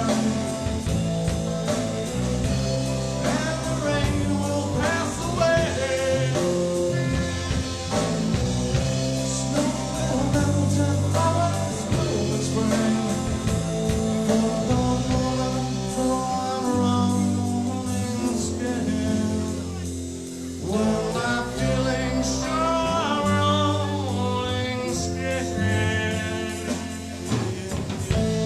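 Live rock band playing: singing over electric guitar, with a moving low line underneath.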